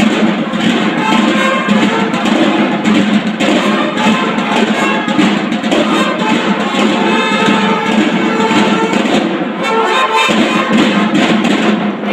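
Mexican banda de guerra of bugles and snare drums playing: the bugles sound over steady, rhythmic drumming.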